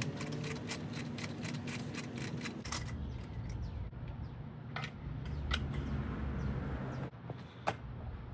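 Ratchet clicking quickly and evenly on a spark plug socket and extension as a spark plug is backed out of a Honda K24 engine, then a few single clicks as the tool and plug are handled. A low steady hum runs underneath.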